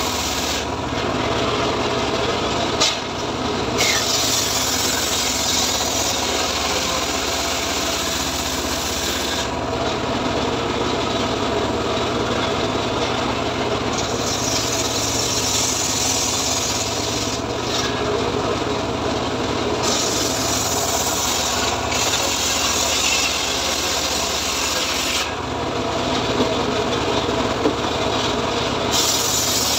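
Homemade srekel sawmill running steadily with its saw blade ripping through a teak log. The rasping cut noise swells and eases several times as the log is pushed through the blade.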